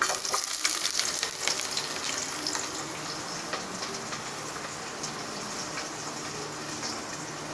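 Chopped onion dropped into hot oil with browned garlic, sizzling hard with a burst of crackles as it goes in, then settling into a steady frying sizzle.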